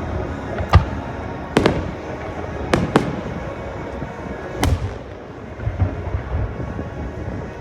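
Aerial fireworks shells bursting: a string of sharp bangs, about one a second, two close together near the three-second mark, with a few weaker pops toward the end.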